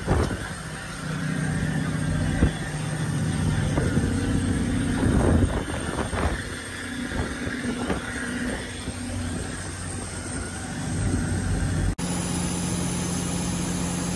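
A fishing trawler's engine running with a steady low hum, with a few knocks from the catch and baskets being handled on deck.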